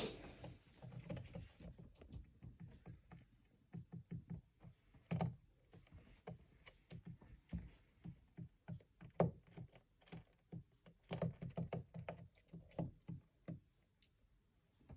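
Racing pigeon making tapping noises with its beak and feet: irregular soft knocks and clicks, some in quick runs, with short pauses between.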